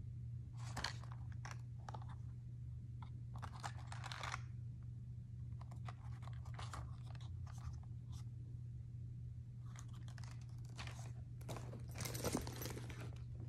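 Crackling and scraping of a cardboard product package turned over in the hands, in short scattered bursts. Near the end comes a louder rustle as a handbag is grabbed. A steady low hum runs underneath.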